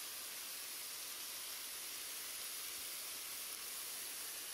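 Angus chuck steaks, onions and zucchini sizzling on a hot flat-top griddle: a steady hiss.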